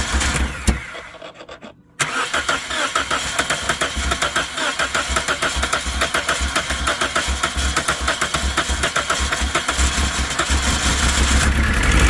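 2007 Toyota Corolla's four-cylinder engine running with a heavy, fast, rhythmic rod knock, a sign of a failed connecting-rod bearing. The engine sound fades away about a second in and comes back abruptly at about two seconds, then runs on knocking steadily.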